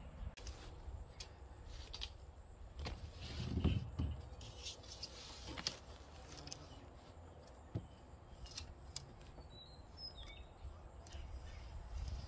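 Outdoor ambience: a low rumble with scattered light clicks and taps, a louder swell of low noise about three to four seconds in, and a few faint bird chirps in the second half.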